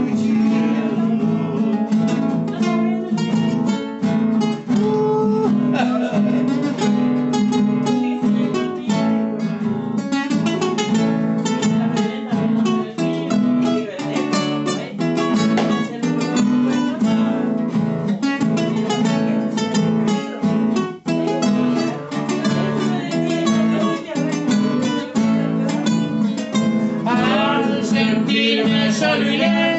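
Acoustic guitar music: rapid plucked melody lines over strummed chords, an instrumental passage of a Spanish-language song.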